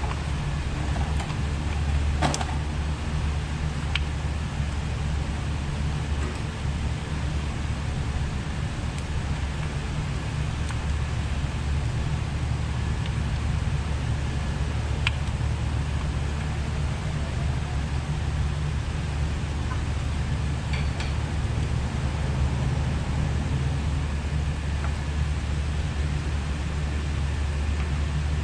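The G35's 3.5-litre V6 idling with a steady low rumble, while the cylinder 6 misfire is checked. A few faint clicks come through over it.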